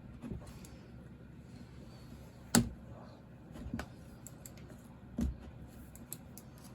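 Scattered metal clicks and knocks of hand tools against a chainsaw's piston and wrist pin as the piston is worked off. One sharp knock about two and a half seconds in is the loudest, with a duller thump a little after five seconds.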